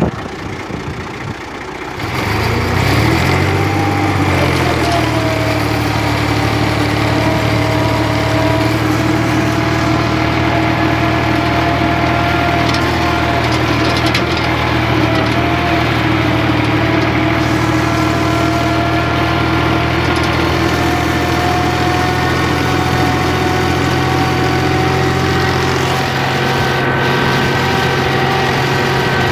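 Massey Ferguson 260 tractor's three-cylinder diesel engine pulling an 18-disc harrow through a field. It is quieter for the first two seconds, picks up revs between about two and four seconds in, then runs steadily under load.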